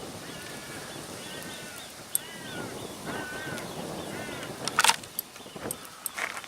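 A bird calling about five times in a row, each call rising and falling in pitch, with a sharp click partway through and a brief loud clatter near the end.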